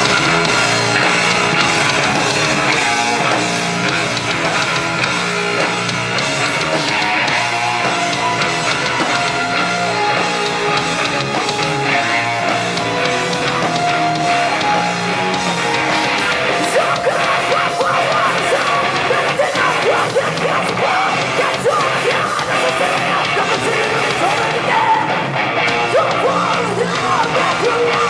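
Live rock band playing a loud heavy-rock song with electric guitars and drums.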